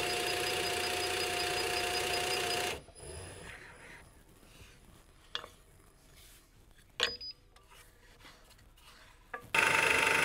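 Drill press running and boring holes in maple with a Forstner bit: a steady whir with a constant tone that stops after about three seconds. After a quiet stretch with a couple of light clicks, the next hole starts near the end.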